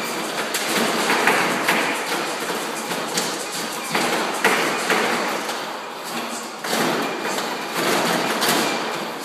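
Shoes thumping and scuffing on a running treadmill belt in uneven dance steps, with music playing underneath.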